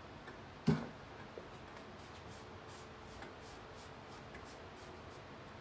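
Paintbrush stroking paint along a painted furniture border, a light, repeated scratchy swish about three strokes a second. One sharp knock less than a second in.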